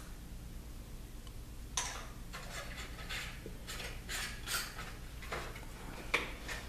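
Scattered light clinks and scrapes of a small can of PVC cement and its lid being handled, starting about two seconds in, over a steady low hum.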